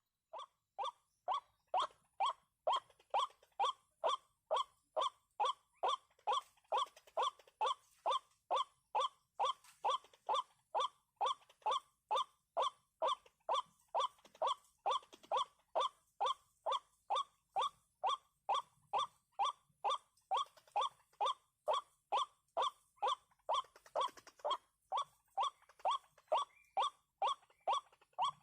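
White-breasted waterhen (ruak-ruak) calling: a long, evenly paced run of short, harsh 'kwak' notes, roughly three a second, each note dropping slightly in pitch.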